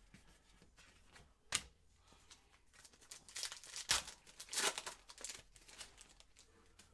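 Trading card packs and cards being handled, rustling and crinkling in short bursts: a sharp one about a second and a half in, then a cluster of crackles between about three and five and a half seconds.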